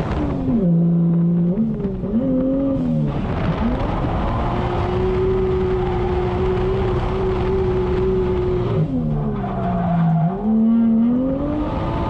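Toyota 1JZ VVT-i straight-six in a drifting Nissan 240SX S13, heard from inside the cabin: the revs fall and climb again near the start, hold steady for several seconds, then drop and climb again near the end, with the tires skidding.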